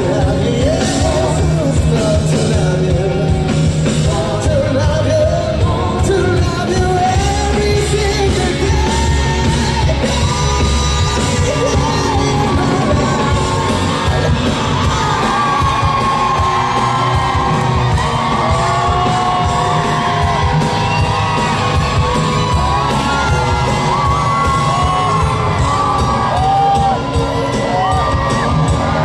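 Live pop-rock band performance with a male lead singer carrying a sung melody over a dense, loud band mix with a steady beat, amplified through a concert hall's sound system. Audience yells and whoops are heard under the music.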